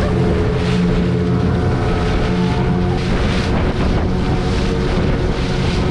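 Motorboat engine running steadily at speed, with water rushing and splashing along the hull and wind buffeting the microphone.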